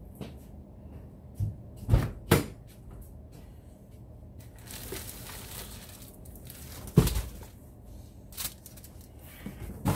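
Car door being unlatched and opened, heard from inside the cabin, with a couple of sharp knocks about two seconds in, then a louder single knock about seven seconds in and a lighter click later as someone leans in over the seat and handles things.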